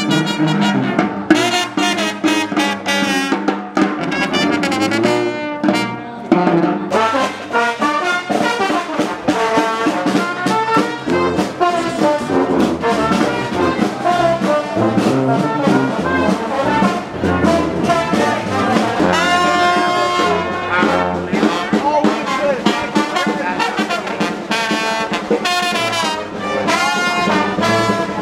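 Brass-band jazz music, with horns playing over a bass line that steps from note to note.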